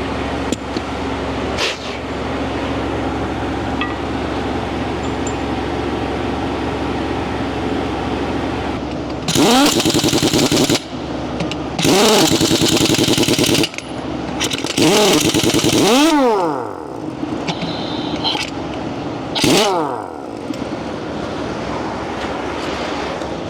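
A steady mechanical hum, then an impact wrench run in four bursts, each winding up in pitch with a rapid hammering rattle and spinning down as the trigger is released: the lug nuts going on a freshly mounted tire.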